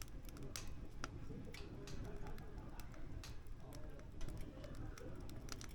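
Firewood crackling in a wood-burning stove: irregular sharp snaps and ticks of varying loudness over a steady low rumble of the fire.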